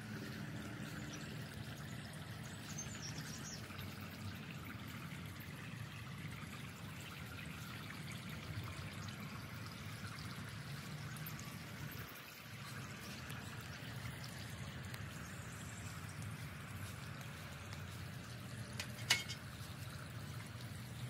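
Water trickling and splashing steadily from a tiered garden fountain. A single sharp click near the end.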